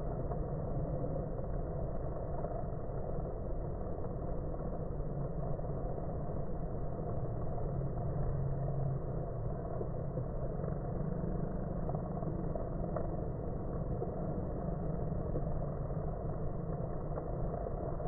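Honeybees humming at a busy hive entrance, the audio slowed with the slow-motion picture so that the buzz becomes a low, steady drone.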